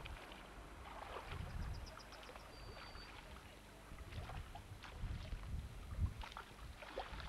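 Faint splashing of a kayak paddle dipping into calm canal water, stroke after stroke, with low rumbles on the camcorder microphone.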